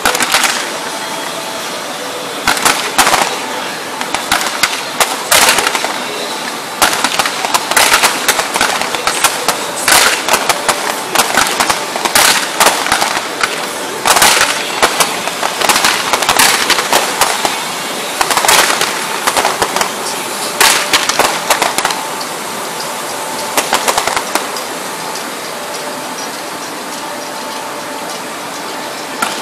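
Fireworks going off in rapid volleys of sharp bangs and crackles, thinning out over the last few seconds.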